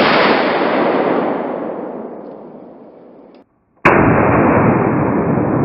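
A gunshot from a Lazer Arms XT7 12-gauge single-barrel shotgun: a sharp crack and a long rolling boom that fades over about three seconds, then cuts off. Near the end the shot comes again, deeper and duller, as if slowed down, with another long rolling boom.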